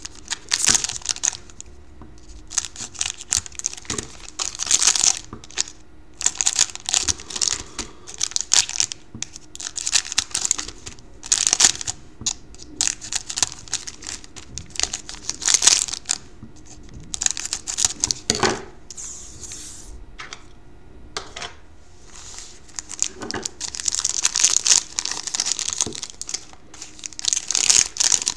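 Foil wrappers of Panini Certified hockey card packs crinkling in quick, irregular bursts as the packs are cut open with scissors and handled.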